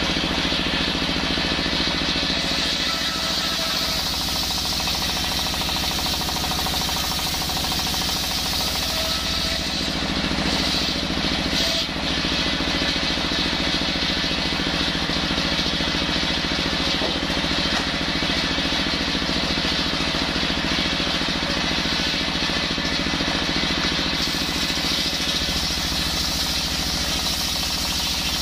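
Stationary diesel engine running steadily, driving a table circular saw whose blade rips through hard coconut-palm wood.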